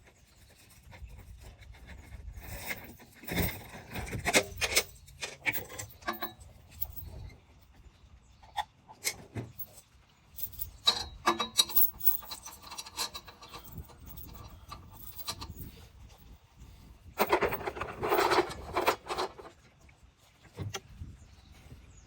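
Hand-work noises: scattered clicks and knocks with rubbing and scraping, and a louder scraping rustle about 17 seconds in.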